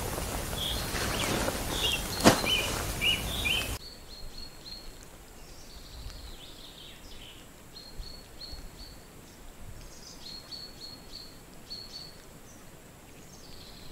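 Small birds chirping in short, repeated high notes over steady outdoor noise. The background noise drops abruptly about four seconds in, leaving the chirps over quieter ambience; a single sharp click comes about two seconds in.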